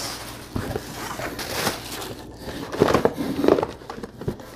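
Plastic air-cushion packing wrap crinkling and a cardboard shipping box being handled, with a run of louder rustles and scrapes about three seconds in.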